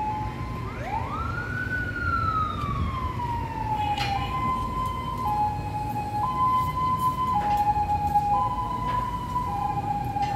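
A siren sounding in a two-tone hi-lo pattern, switching pitch about once a second, with a single rising-and-falling wail near the start. A steady low rumble runs underneath, and a sharp knock comes about four seconds in.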